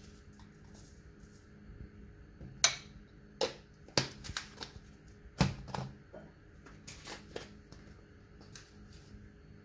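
Scattered sharp clicks and taps, about half a dozen, the loudest near the start and middle: the handling of spice containers and a spoon as dry seasonings are measured out onto a ceramic plate.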